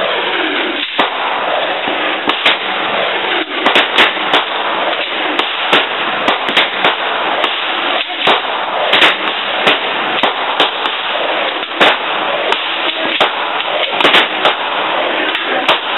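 Gunfire from several guns on a shooting range firing line: dozens of sharp shots at uneven intervals, some in quick clusters, over a steady noisy background.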